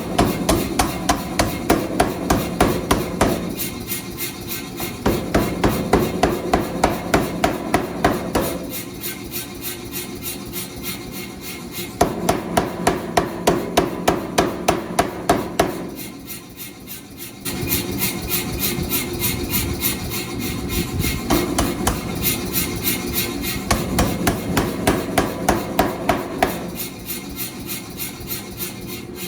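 Steady hammering on a railroad anchor being forged into a cleaver: sharp metal-on-metal blows, about three a second, in runs broken by short pauses, over a steady background hum.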